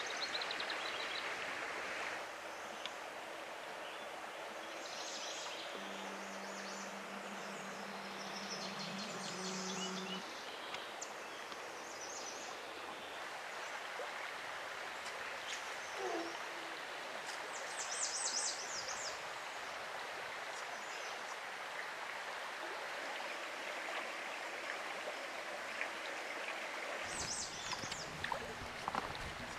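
Small trout stream running steadily over a shallow rocky bed, with short high bird chirps now and then, the loudest about two-thirds of the way through. Near the end, rustling and knocks close to the microphone.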